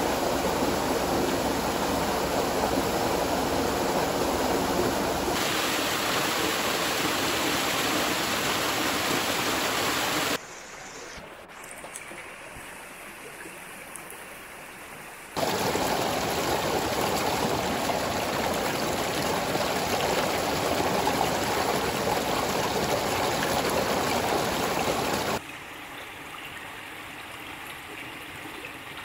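Running water from a small forest waterfall and a rocky mountain stream: a steady rush that drops abruptly to a much quieter flow about ten seconds in, comes back loud about five seconds later, and drops again near the end.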